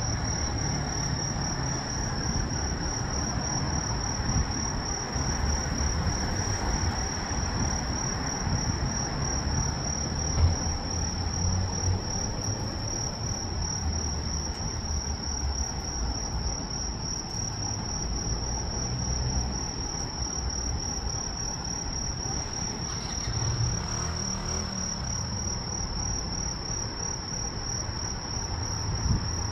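Crickets trilling in one steady, unbroken high tone, over a low rumble.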